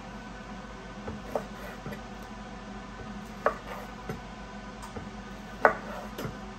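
Chef's knife cutting raw chicken breast into cubes on a wooden cutting board: short knocks of the blade striking the wood, about eight at an uneven pace, the loudest a little after halfway.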